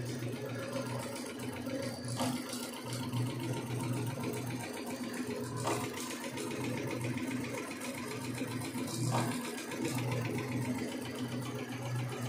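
Multi-needle computer embroidery machine running, stitching rapidly with a steady clatter and a low hum that swells and drops every second or so, with a few sharp clicks along the way.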